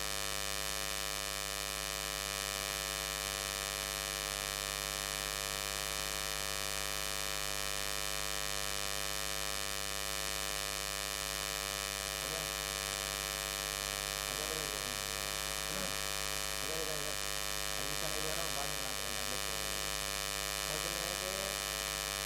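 Steady electrical hum and buzz made of many even, unchanging tones, interference from an inverter power supply picked up on the recording. Faint voices come in over it from about halfway through.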